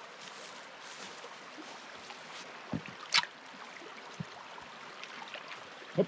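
Steady rush of running water over rocks, with a few sharp knocks of steps on the stones, the loudest about three seconds in.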